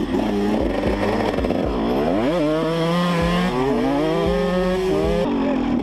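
Yamaha YZ125's two-stroke single-cylinder engine running under throttle. The revs dip about two seconds in, then climb and hold high for a few seconds before changing abruptly near the end.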